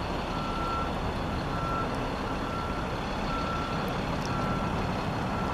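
Vehicle reversing alarm beeping, one steady high tone about once a second, over steady background noise.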